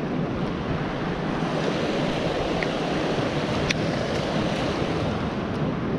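Steady rush of river water running over rocks, with wind on the microphone and a faint click a little past halfway.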